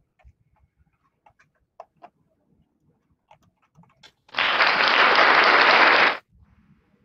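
Scattered faint clicks, then about four seconds in a loud burst of rushing noise lasting about two seconds that starts and cuts off abruptly.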